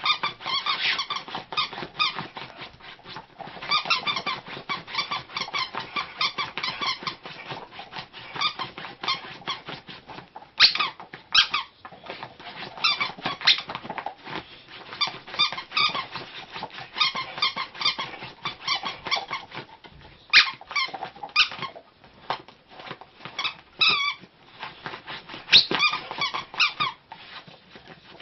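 Dog's squeaky toy trapped under a fitted bed sheet, squeaking in quick flurries of short squeaks with brief pauses between runs, as a pit bull digs at it through the sheet with her paws, her claws scratching the fabric.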